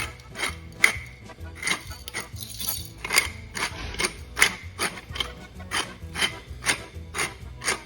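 Background music with a steady percussive beat of about two to three clicks a second.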